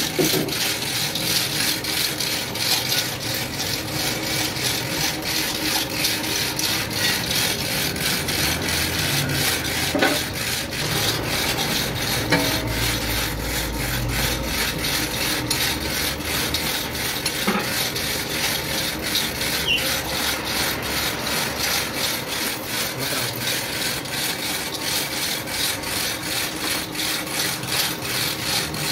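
Rapid, evenly repeated rasping strokes of a hand tool working metal, with a low rumble for a few seconds midway.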